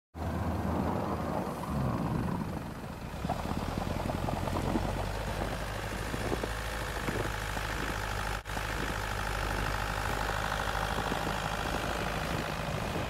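Toyota Land Cruiser Prado 150's engine running steadily, with scattered knocks over it for a few seconds and a brief dropout about eight seconds in.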